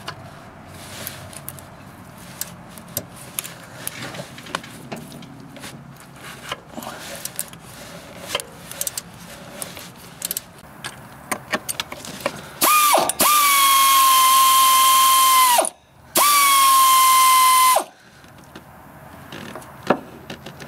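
Ratchet clicking in short spurts on the 14 mm alternator mounting bolt, then a power tool runs twice with a loud steady whine, for about three seconds and then about two, its pitch dipping slightly as each run starts.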